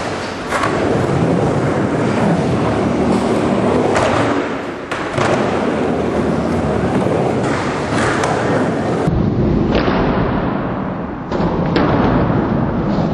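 Skateboard wheels rolling on a concrete bowl, a continuous rumble, broken by several sharp clacks and thuds of the board hitting the concrete.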